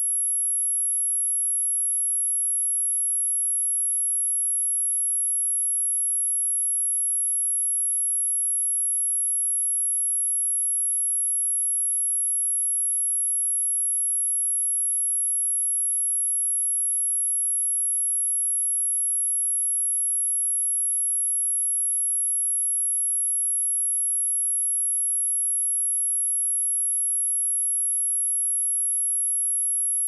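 A single steady sine-wave test tone at 11197 Hz, a very high-pitched whine held at constant pitch and level.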